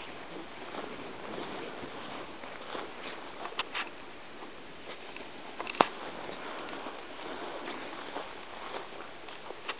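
Footsteps and legs swishing through tall grass, a steady rustle, with a few short clicks and one sharp, loud click a little past halfway.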